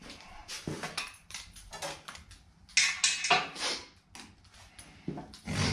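Metal tools clinking and clattering while being handled at the engine, irregular knocks with a loud cluster of clanks about three seconds in and a heavier knock near the end.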